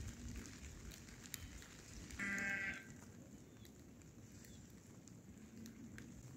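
A goat bleats once, a single call of about half a second, about two seconds in.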